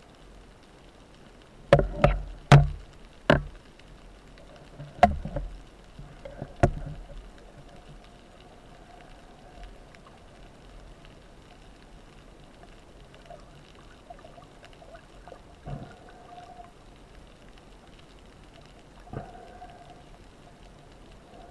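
Underwater sounds during a spearfishing dive: a cluster of sharp knocks and clicks in the first seven seconds, then quiet water with a faint on-and-off hum and two softer thuds.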